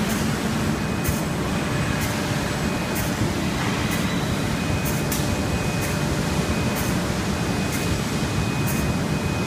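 Steady machinery noise of an automated foundry sand-core production line: a dense low rumble with faint steady tones over it, and a short high hiss about once a second.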